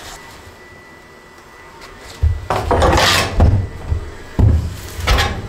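Rough scraping and rubbing of wood by a hand tool, with dull thuds, starting about two seconds in and coming again briefly near the end.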